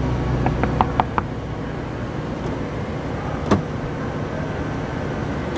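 Knuckles rapping about five times in quick succession on the side window of a stretch limousine, a light, slightly ringing knock on glass, over the steady low hum of the idling car.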